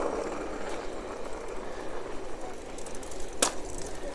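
An electric bicycle riding along a paved road: steady rolling and wind noise, with one sharp click about three and a half seconds in.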